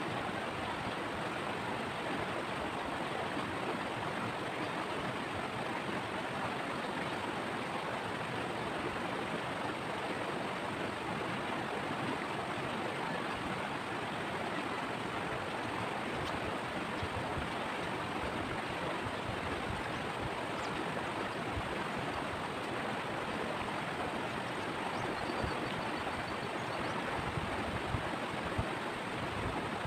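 Shallow river water rushing steadily over rocks and stones, an even hiss with no pauses.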